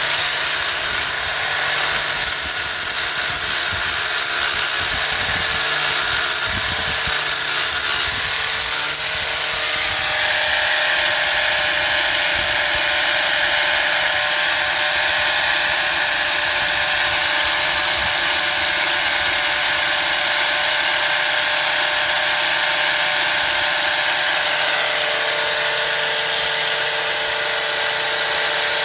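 Handheld power drill running continuously under load, drilling into a broken stud; its tone shifts about ten seconds in.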